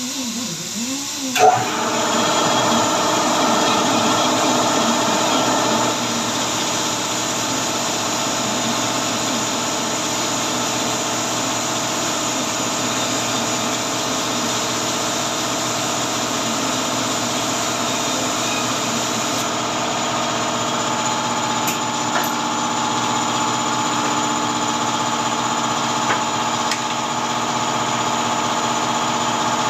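Pneumatic buffer on an air hose running steadily against the inside of a tyre, roughing the rubber around a puncture to prepare it for cement and a patch. It starts abruptly about a second and a half in.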